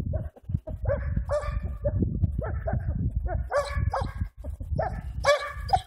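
Hamiltonstövare hound baying on a hare trail: a string of short, pitched bays in uneven spells. The hound is struggling to sort out the hare's tracks.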